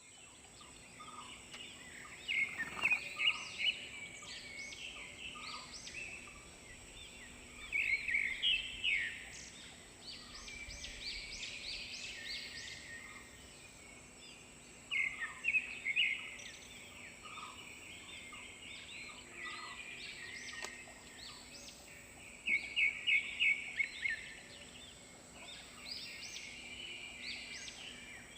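Birds calling, with bursts of quick, high chirping notes repeating every several seconds over a steady high-pitched whine.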